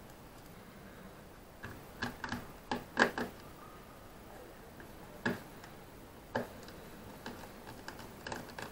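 About a dozen light clicks and taps, irregularly spaced, most of them bunched two to three seconds in: small objects being handled by hand.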